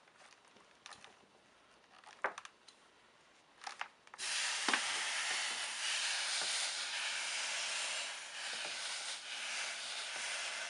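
A clothes iron pressed onto a hot, wet towel: steam hissing steadily, starting suddenly about four seconds in after a few light taps.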